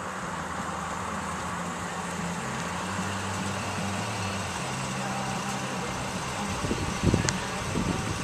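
Car engine and road noise heard from inside the cabin: a steady hum whose pitch steps up and down a few times, with a few low thumps about seven seconds in.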